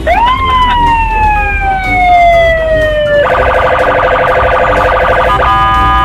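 Police car siren: one long tone that rises quickly and then slides slowly downward, then about three seconds in it switches abruptly to a fast, steady multi-tone pattern that breaks off briefly near the end. Low traffic rumble underneath.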